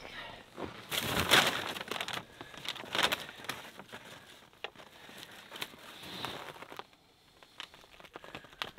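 Tent fabric rustling and crinkling with crunching snow as the base of the tent is handled, in irregular bursts with scattered clicks, loudest about a second in and again around three seconds.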